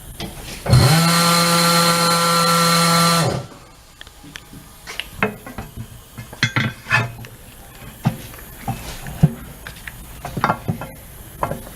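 A power tool runs steadily for about three seconds, starting sharply about a second in, as it turns out a run-flat lock bolt. Short metallic clicks and knocks of tool handling follow.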